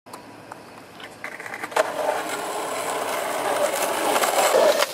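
Skateboard wheels rolling over rough asphalt: a sharp knock about two seconds in, then a steady rolling rumble that grows louder as the board comes up close.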